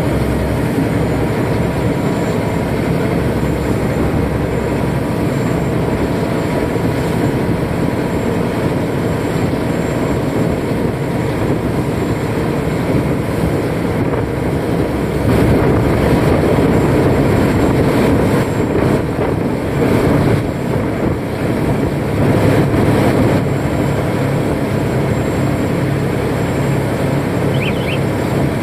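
Canal express boat under way at speed: its engine runs loud and steady under the rush of water churned up beside the hull, swelling a little about halfway through.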